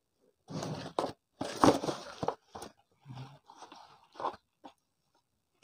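Cardboard box being opened by hand: a burst of cardboard crunching and scraping with a few sharp clicks, then softer rustling and light handling noises as the contents are moved.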